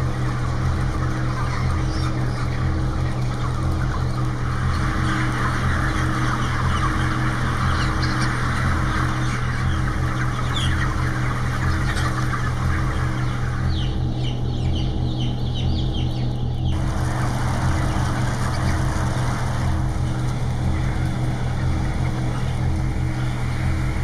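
Dense flock noise of crowded broiler chickens, a constant mass of small calls and cheeps, over a steady low pulsing drone. The flock noise cuts away about fourteen seconds in, leaving a few higher chirps, and returns a few seconds later.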